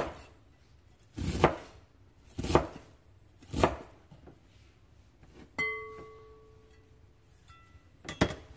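Chef's knife slicing through a wedge of cabbage onto a plastic cutting board: four chopping strokes about a second apart, then a short ringing clink about halfway through and one more chop near the end.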